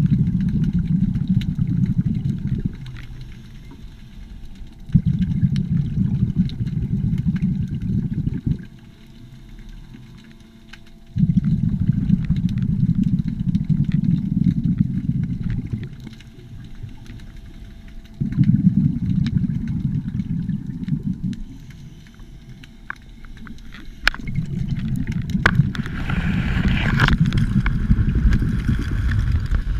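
Underwater recording of a scuba diver's regulator exhaust bubbles: a low bubbling rumble in bursts of about three seconds, about every six seconds, with quieter inhalations between.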